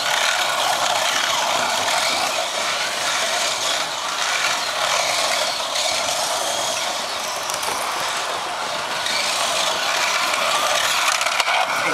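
Carrera slot cars running on a plastic track: a steady mechanical buzz and whir of their small electric motors and gears, with faint whines that rise and fall as they speed up and slow down.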